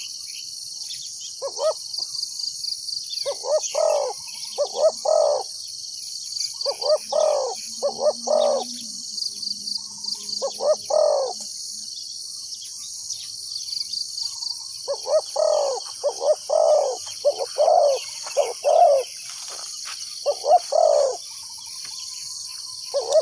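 Spotted doves cooing in repeated short phrases of two or three notes, with a run of quicker phrases in the second half. A steady high insect drone runs underneath.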